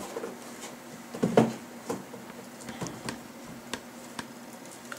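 A netbook being handled and set down on a wooden desk: scattered light knocks and clicks, the loudest about a second in, over a faint steady hum.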